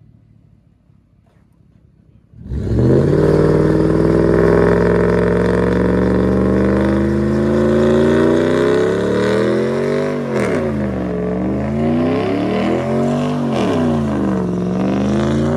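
Pickup truck engine revving hard through a burnout, rear tyre spinning in place. The engine comes in suddenly about two and a half seconds in and holds at high revs, then the revs drop and climb again a few times near the end.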